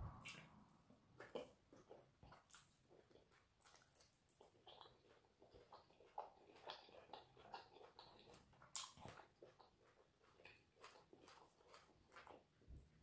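Faint close-up eating sounds of eba and okra soup eaten by hand: soft wet chewing with scattered lip smacks and sticky mouth clicks.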